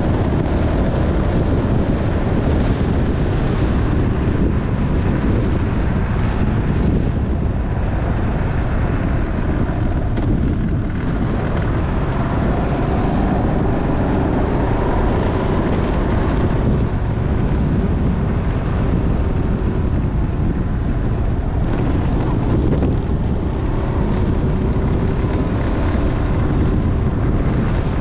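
Motorcycle engine running while riding, with loud wind rumble on the microphone.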